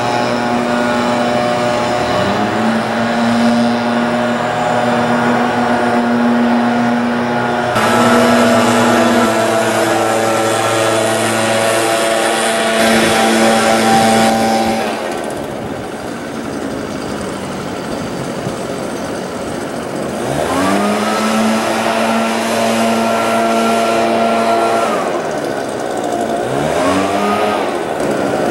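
Gas-powered backpack leaf blower's two-stroke engine running at high throttle. Its pitch sweeps up as the throttle is squeezed again about 2 seconds in, about 20 seconds in and near the end, and it drops back to a lower, quieter run for a few seconds past the halfway point.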